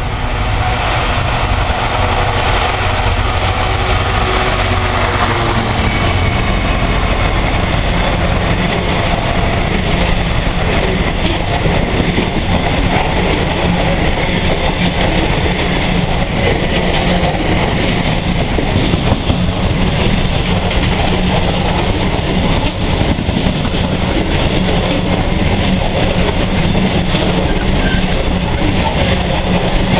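Long freight train of EWS bogie hopper wagons passing close by: a loud, steady rumble and rattle of wheels on rail. A steady engine tone in the first few seconds gives way to the wagons alone.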